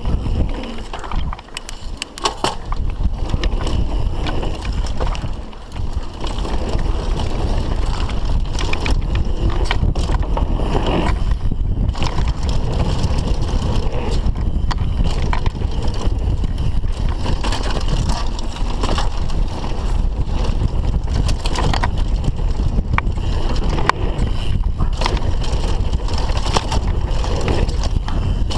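Mountain bike riding fast down a dirt jump trail: wind rushing over the microphone, tyres rumbling over the dirt, and the bike rattling with sharp clicks and knocks over bumps.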